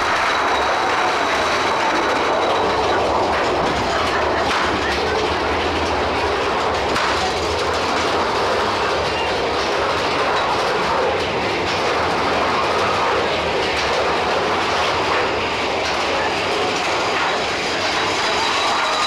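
Big Thunder Mountain Railroad mine-train coaster running along its track through a tunnel: a steady, loud rumble and clatter of the train's wheels on the rails.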